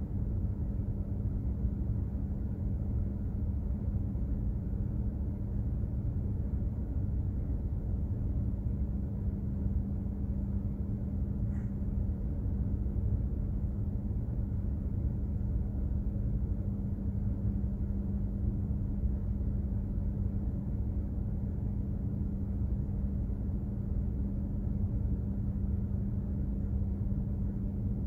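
Container ship's machinery running: a steady low rumble with a constant hum.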